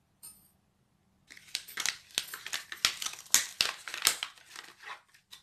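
Plastic blister packaging on a card backing crinkling and crackling as it is pulled open by hand, a dense run of sharp crackles starting about a second in and stopping near the end.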